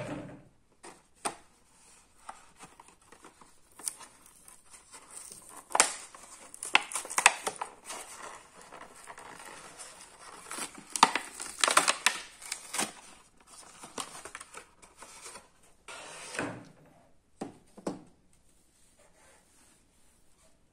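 Clear plastic blister packaging being handled and torn open by hand: bursts of crinkling and sharp crackling, busiest a third of the way in and again past halfway, then they stop.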